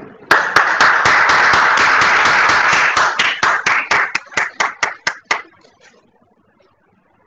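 Audience applauding. The clapping starts about a third of a second in as a dense burst, thins to scattered single claps from about three seconds in, and dies away after about five seconds.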